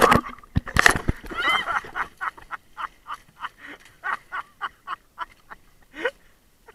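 Paddle blades slapping and splashing water, loudest in the first second. This is followed by a long run of short, rhythmic bursts of laughter.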